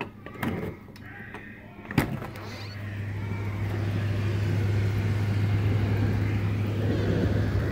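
A window being slid open, with a couple of knocks and a sharp click about two seconds in. After that the steady hiss of rain and a low outdoor hum come in louder and hold level.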